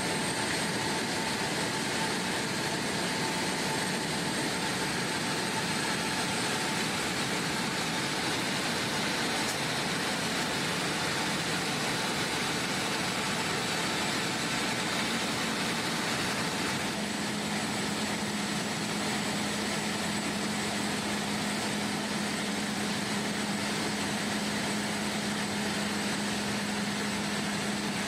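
Helicopter engine and rotor running steadily, heard from aboard the helicopter as a constant whooshing drone. A low steady hum joins a little past halfway.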